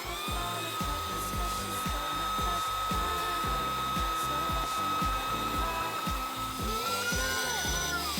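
Small electric motor running with a steady whine that lifts slightly in pitch near the end and then winds down, over background music with a steady beat.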